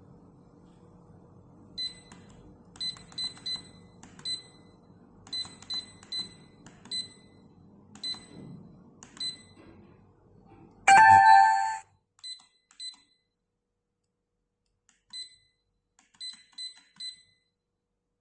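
Digital alarm clock giving short, high electronic beeps in irregular runs, like button presses. About eleven seconds in there is one loud electronic tone of several pitches that lasts about a second.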